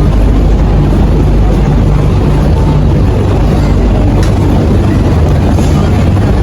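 Steady, loud low rumble of rushing air, with no breaks.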